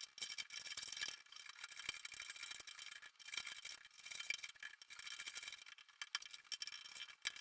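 Faint, irregular scratching and small clicks of hand tools working thin wood.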